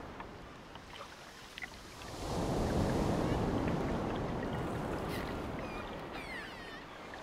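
Rushing, churning water of a boat's wake, swelling about two seconds in and easing off near the end. Faint high chirps and a short falling whistle come through near the end.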